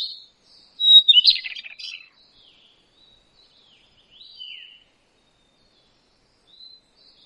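Birds chirping and calling: a dense cluster of overlapping chirps about a second in, then scattered short whistled notes, several gliding downward.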